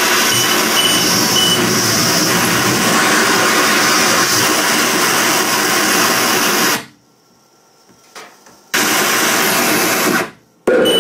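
Live harsh noise music from electronics: a loud, dense wall of distorted noise that cuts off abruptly about seven seconds in, followed by a near-silent gap with one faint blip. It then bursts back on for a second or two, stops short again, and returns right at the end.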